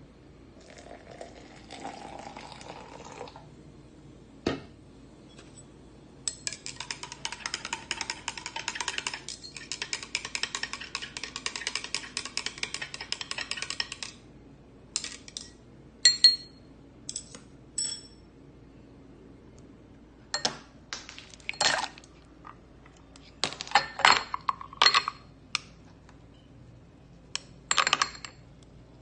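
A short pour into a tall glass, then a spoon stirring iced coffee briskly, clinking rapidly against the glass and ice for about eight seconds. Scattered sharp clinks of ice cubes follow in small groups.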